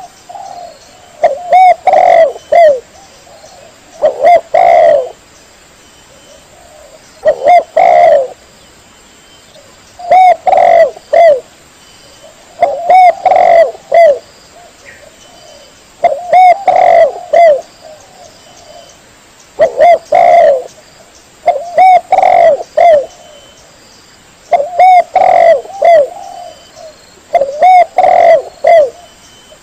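Spotted dove (tekukur) cooing loudly: a phrase of a few hooting notes, repeated about every three seconds.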